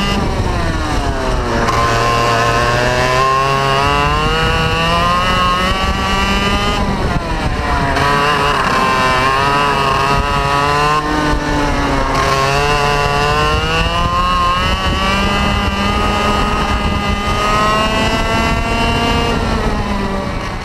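ROK 125 two-stroke kart engine running hard through a lap, seen from onboard. Its pitch climbs steadily down each straight and falls off sharply when braking into each corner, about three times.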